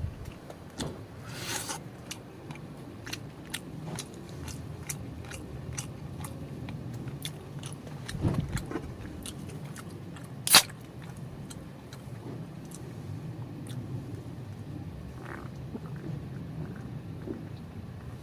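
A person chewing wood-fire-roasted whole chicken close to the microphone, with many small crunching clicks, and one sharp loud click about ten and a half seconds in.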